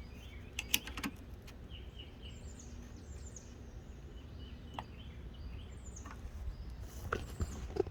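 A few light clicks and knocks of a key being taken out of and fitted into the clamp jaw of an XHORSE Dolphin XP005 key cutting machine, about a second in, near the middle and again near the end, over a low steady hum. Birds chirp faintly in the background.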